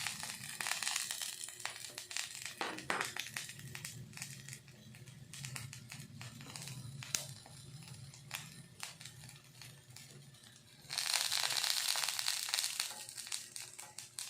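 Crackling on a grill used in place of a gas stove, with many small pops and clicks. About eleven seconds in, a louder hiss comes in and lasts nearly two seconds.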